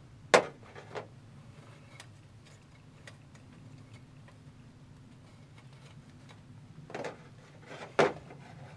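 Sharp metallic clinks of thin steel rods against a small folding steel stove as they are worked through its side holes to raise the bed of hot coals. There is a loud clink just after the start and a lighter one about a second in, then two more about seven and eight seconds in. The one near eight seconds is the loudest of the later pair.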